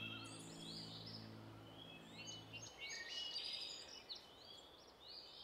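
Faint chorus of birds chirping and calling, many short rising notes, over a soft even hiss. A held low music chord underneath stops about two and a half seconds in.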